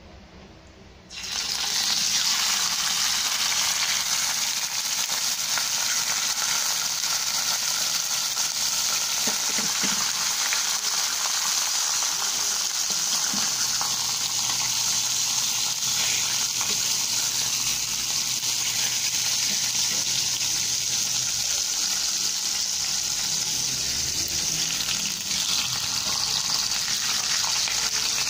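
Pork steak slices sizzling loudly in hot oil in a frying pan, the sizzle starting suddenly about a second in as the meat goes into the oil and then holding steady.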